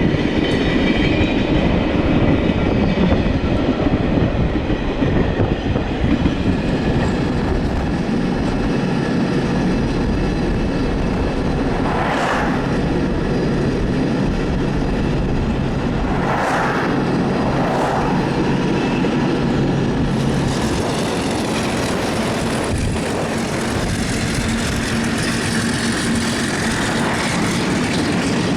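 Train running on the rails: a steady rumble of wheels on track, with a few short bursts of noise a little before halfway and again after it.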